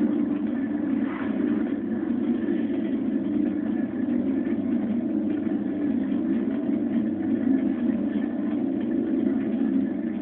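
A steady low drone that runs on without a break or change.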